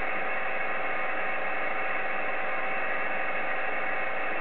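Steady hiss of band noise from an Icom IC-7300 transceiver's speaker, receiving 28.325 MHz upper sideband on the 10-metre band with no one talking. Two faint steady tones, heterodynes, sit in the hiss.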